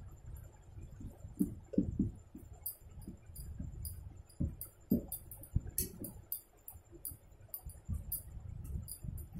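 Someone eating rice and curry by hand: chewing and many short mouth clicks, with fingers scraping and clinking on a steel plate.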